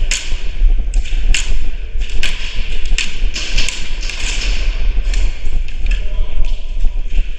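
Airsoft guns firing scattered single shots: about a dozen sharp, irregularly spaced cracks over a steady low rumble.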